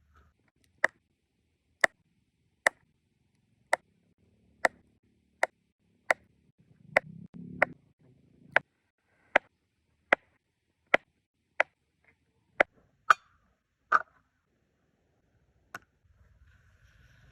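Repeated sharp chopping strikes of a tool, about eighteen in all at roughly one a second, with a short pause before the last one.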